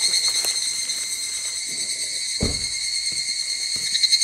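Steady high-pitched insect calling that pulses rapidly near the end, with one low thump about two and a half seconds in.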